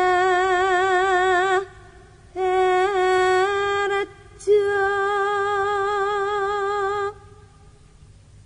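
A woman singing unaccompanied in a slow Javanese vocal style, holding three long notes with a wavering vibrato, each about two seconds long with short breaks between; the voice stops about two-thirds of the way through.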